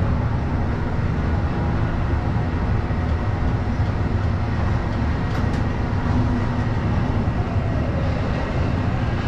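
Steady mechanical drone of a Panamax container crane's machinery heard inside the operator's cab, low and even with a hum of several steady tones, and a couple of faint clicks about five seconds in.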